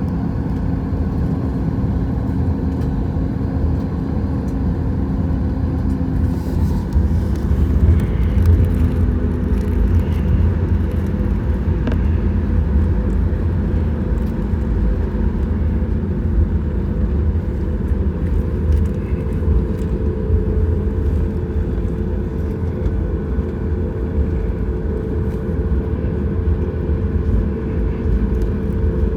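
Cabin noise of a Boeing 737 MAX 8 taxiing: a steady low rumble with a constant engine hum from its CFM LEAP-1B engines at taxi power.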